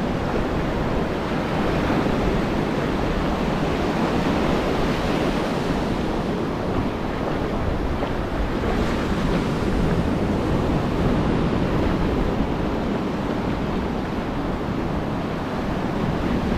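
Ocean surf breaking and washing up the sand in a steady rush, with wind buffeting the microphone.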